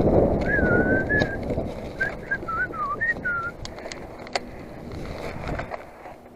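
Wind and rolling noise from a moving mountain bike, fading as it slows to a stop, over a clear whistled phrase of gliding, wavering notes that breaks into short notes. There is a single sharp click near the middle.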